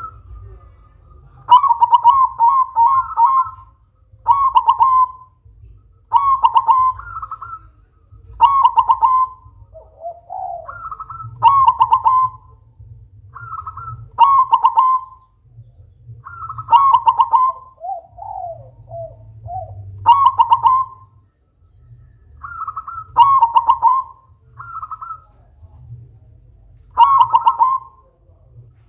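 Silver zebra dove (perkutut) singing its cooing song over and over: about a dozen short phrases of rapid, stuttering coos, one every two seconds or so, with a couple of lower, softer phrases among them.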